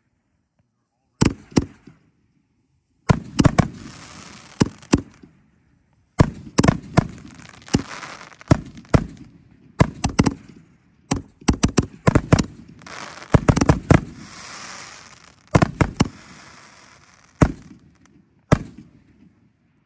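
Super Wave 5-inch canister firework shells firing and bursting: an irregular string of sharp booms, several in quick succession, with a crackling hiss lingering after some of them.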